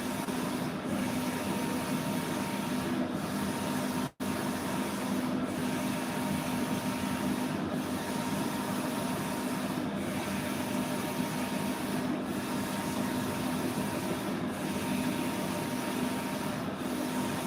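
Printing machine running steadily: a continuous mechanical hum and hiss that repeats a regular cycle about every two seconds. The sound cuts out for an instant about four seconds in.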